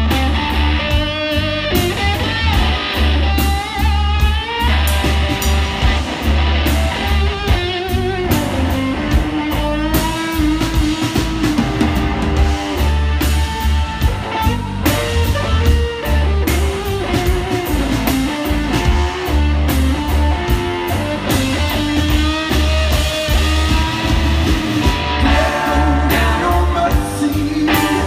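Live blues-rock band playing: a lead electric guitar over electric bass and drum kit, with a man singing near the end.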